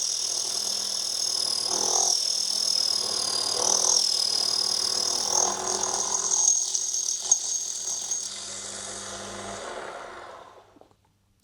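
Small lathe running with a steady motor hum while the tool cuts the soft brass disc, giving a high, wavering squeal. The squeal stops about eight seconds in, and the motor winds down and stops near the end.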